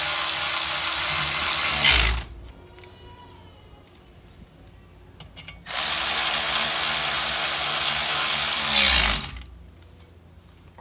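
Cordless power driver running in two bursts of about three and a half seconds each, with a pause between, driving the brake rotor's retaining screws back into the hub.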